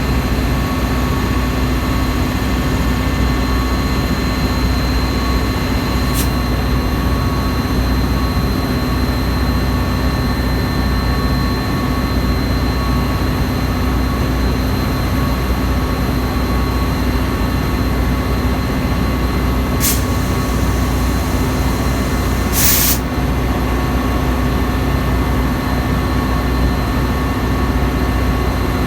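Metra diesel locomotive running at a constant speed, a steady loud rumble with a fixed whine that does not change in pitch. Two short hissing bursts come about two-thirds of the way through.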